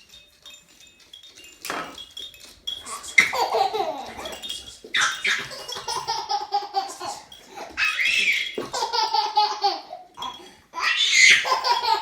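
A baby or young child laughing in several high-pitched bouts, with short pauses between them.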